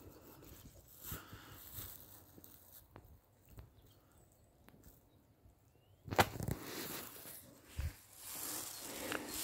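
Footsteps crunching in snow, sparse and quiet at first, with the loudest crunch about six seconds in and a noisy swishing crunch near the end.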